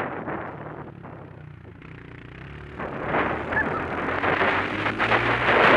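Honda CRF125 single-cylinder four-stroke dirt bike engine: off the throttle at low revs for a couple of seconds, then picking up again about three seconds in. Wind buffets the helmet-mounted microphone as speed builds.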